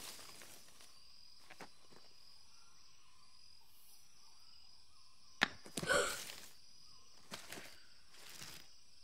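Faint jungle ambience of steady, high insect buzzing. About five and a half seconds in comes a sharp click, then a short louder rustle, with a few softer ones near the end.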